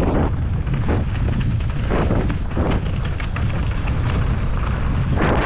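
Wind rushing over a GoPro's microphone as a mountain bike descends a dirt trail, a constant low rumble. Irregular crunches and clatters come from the tyres and bike over the ground.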